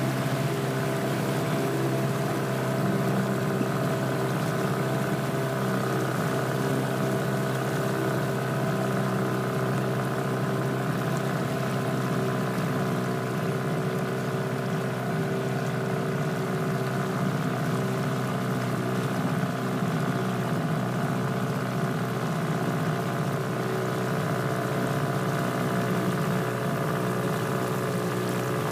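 A small boat's engine running steadily at a constant speed, an even hum that never changes pitch.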